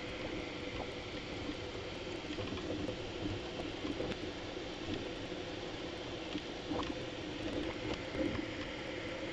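Bambu Lab A1 3D printer running a print, its stepper motors and fans sounding together in a steady churning chatter with a faint steady tone and small scattered ticks, sped up with the footage.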